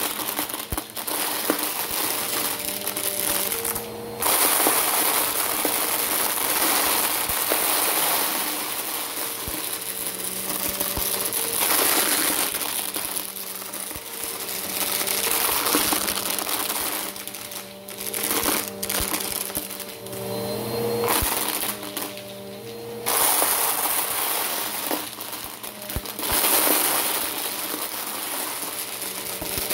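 Bissell Power Force Helix upright vacuum running over carpet and sucking up small plastic building cubes, which rattle and clatter up through the nozzle in a dense crunch. The motor hum runs underneath, shifting in pitch now and then, and the clatter swells and dips as the vacuum is pushed into the piles and pulled back.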